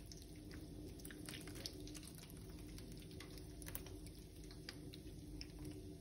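Thick tomato sauce pouring from a pot over meatballs and potato wedges in a glass baking dish: faint, scattered wet clicks and soft splats over a low steady hum.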